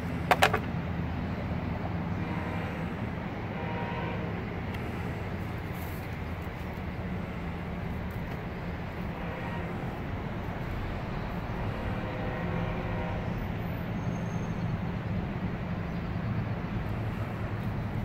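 Steady low rumble of a motor vehicle's engine running, with a few sharp clicks right at the start.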